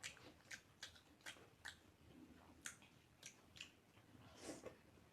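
Faint, close-miked chewing of momo dumplings: soft wet mouth clicks about twice a second, with a slightly longer smacking sound near the end.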